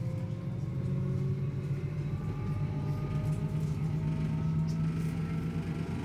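A motor vehicle's engine running with a steady low hum, its pitch climbing slowly as it gathers speed.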